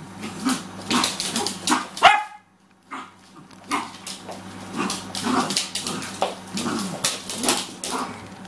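Two small dogs, a Maltese puppy and a cockapoo, play-fighting: a sharp bark about two seconds in, then short yips and growls with scattered clicks and scuffles.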